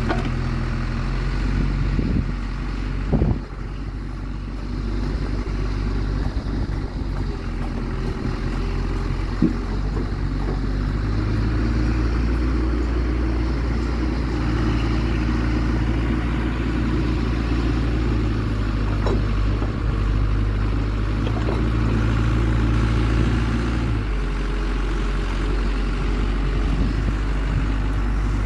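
Mecalac 12MX wheeled excavator's diesel engine running steadily under hydraulic load as the boom and bucket work. Its note rises about ten seconds in and drops back a few seconds before the end, and a couple of short clunks come in the first ten seconds.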